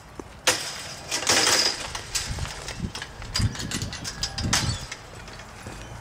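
Handling noise and footsteps of someone walking with a hand-held camera: a sharp click about half a second in, a burst of rustling, then soft irregular thumps.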